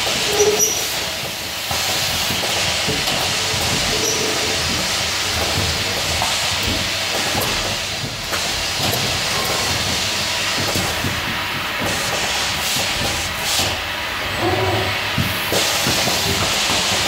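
Automated pick-and-place sorting machine running, with a steady hiss and pneumatic grippers and conveyors clicking and clattering now and then. A short beep-like tone sounds a few times.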